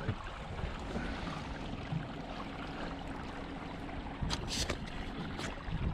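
A boat's engine running with a steady low hum under wind and water noise, with a brief hiss about four seconds in.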